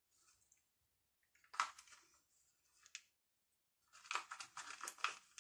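Quiet handling sounds of small chocolate chips being shaken from a silicone cup onto croissant dough lying on plastic wrap: two single light clicks, then a quick cluster of small ticks and rustles near the end.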